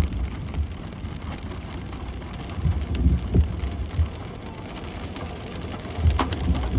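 Rain falling in a thunderstorm, with a few low rumbles about three seconds in and again near the end.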